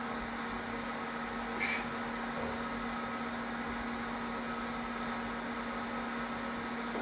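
A pump circulating cleaning solution makes a steady hum with a constant low tone. A faint brief sound comes about two seconds in.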